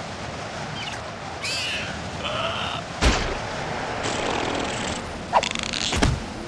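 Cartoon sound effects: a cartoon larva's squeaky, wordless cries and yells, with two sharp thuds, one about three seconds in and one about six seconds in.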